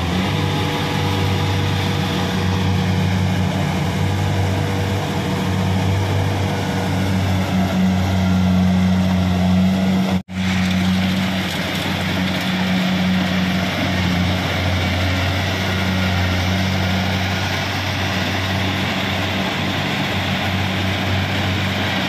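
Kubota DC-70 rice combine harvester running steadily, its diesel engine humming low under the noise of its harvesting machinery. The sound breaks off for an instant about ten seconds in.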